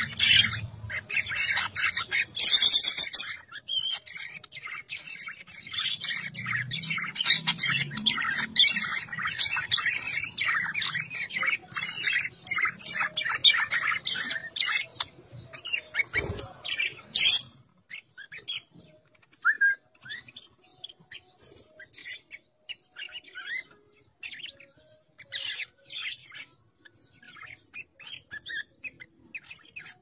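Caged budgerigars chattering with rapid chirps and squawks, dense for about the first half, then thinning to scattered chirps.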